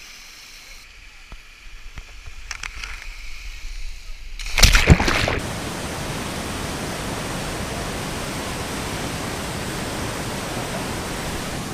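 Water splashing and trickling, then a loud burst about four and a half seconds in, after which a white-water river cascade rushes with a steady, even noise.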